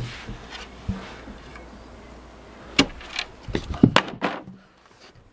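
Chunks of an old wooden cabinet knocking and clattering, with a cluster of sharp wooden knocks about three to four seconds in as a piece is thrown out the window onto the pile of broken cabinet.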